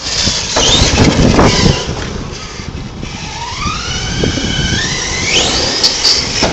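Electric RC car's motor, running on 4S power, whining and climbing in pitch as it accelerates. Loud rough noise fills the first two seconds.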